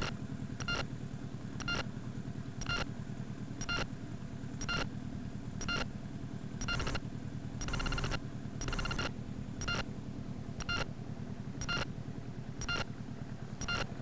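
Steady low hum of a small boat's motor, with a short electronic beep repeating about once a second; two of the beeps, one just before the start and one about eight seconds in, run longer.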